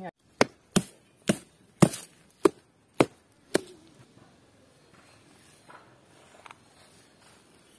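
A wooden stick being hammered crosswise through banana trunks to pin a raft together: about eight sharp knocks roughly every half second, stopping about three and a half seconds in.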